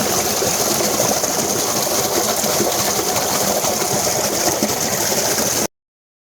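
Strong, steady gush of water pouring from the 4-inch outlet pipes of a 5.5 hp submersible pump set 80 ft down, filling a tank at full force. It cuts off abruptly near the end.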